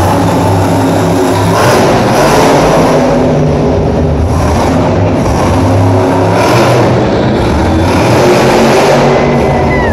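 Monster truck's supercharged V8 engine revving hard and running loud, with surges in loudness as the throttle opens.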